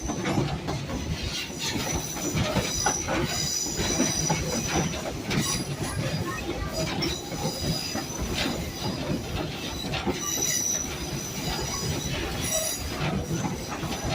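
Passenger train cars rolling along the track, a steady rumble and clatter of wheels, with the wheels squealing in short high thin tones that come and go on the curves.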